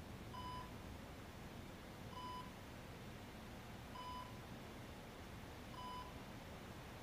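Bedside patient monitor beeping faintly: four short, even electronic beeps, one about every second and three-quarters.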